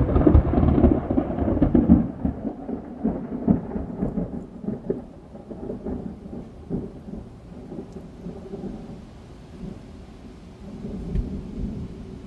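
Thunder: a loud peal that crackles and rolls for the first couple of seconds, then rumbles on and slowly fades, with another low swell of rumbling near the end.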